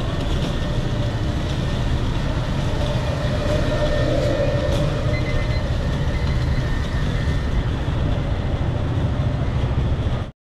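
Train running, a loud steady rumble with a faint whine rising out of it about four seconds in; it cuts off abruptly at the end.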